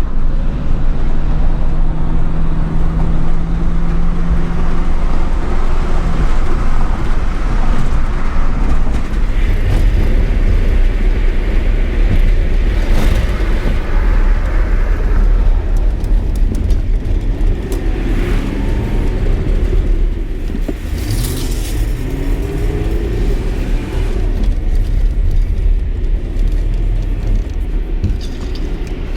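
A car being driven, heard from inside: a steady, loud low rumble of road and engine noise, with some rising and falling engine tones about two-thirds of the way through.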